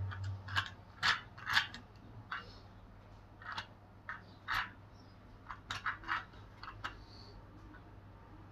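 Irregular small plastic clicks and light knocks from a 3D-printed toy clock being handled and its hands turned by hand.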